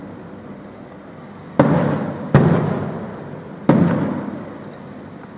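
Aerial firework shells bursting overhead. Three sharp bangs come about a second and a half in, under a second later, and again about a second after that, each trailing off in a rumbling echo that fades over a second or so.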